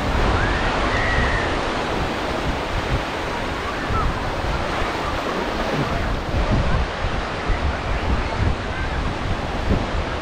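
Sea surf washing onto a beach, a steady rushing hiss, with gusts of wind buffeting the microphone that grow stronger in the second half.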